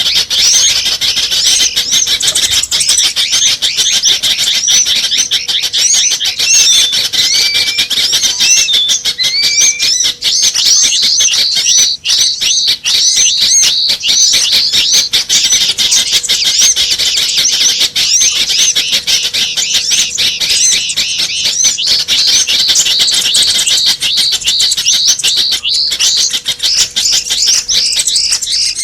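Small-bird lure calls: a dense, unbroken chatter of many quick high chirps and twitters overlapping, with a few lower warbled notes partway through. It is a mix of several small birds' calls of the kind played to attract small birds.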